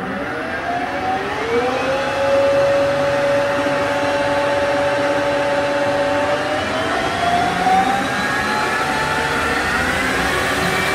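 Harrison Alpha 400 CNC gap-bed lathe's spindle running up in its high speed range. The whine from the spindle drive and gearing rises in pitch over the first two seconds and holds steady, then climbs again in two further steps as the speed is raised.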